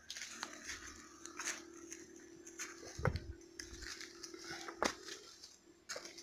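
Footsteps crunching through dry leaf litter and brush, with twigs cracking and leaves rustling at an irregular pace, and a heavier thump about three seconds in.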